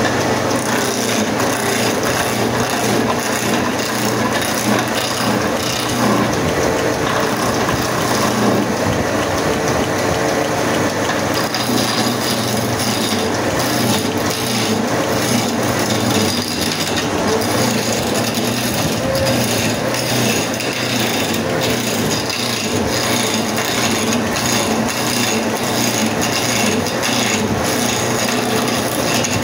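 Hand chisel cutting into a large wooden blank spinning on a wood lathe: a continuous rough scraping and chattering of the tool on the wood, with a steady hum underneath.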